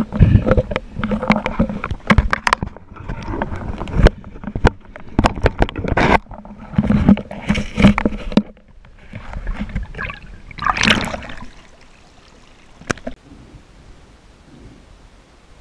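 Water sloshing and gurgling with bubbles and irregular sharp knocks and clicks, heard close through an underwater microphone as a spearfisher moves in shallow water; it quietens after about twelve seconds, leaving only a few clicks.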